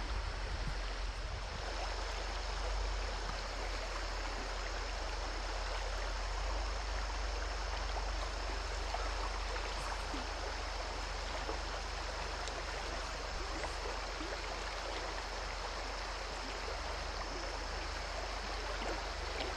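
Shallow, rocky creek running over riffles and pocket water: a steady, unbroken rush of water with a low rumble underneath.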